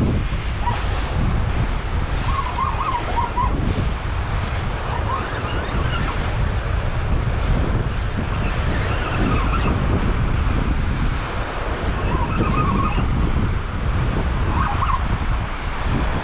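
Strong wind buffeting the microphone over surf breaking on the beach, a steady low rumble.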